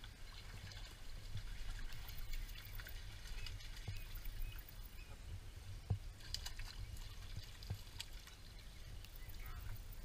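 Shallow stream water splashing and sloshing as a hooked trout is landed by hand, with a few sharp clicks and knocks of handling, the loudest about six seconds in.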